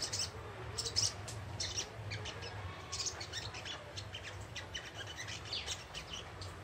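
Young sunbird (sogon ijoan) twittering: a rapid, irregular run of short high chirps.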